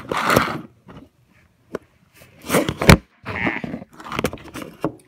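Scraping, rustling and clicking of things being handled close to the microphone, in short bursts with a sharp click about three seconds in.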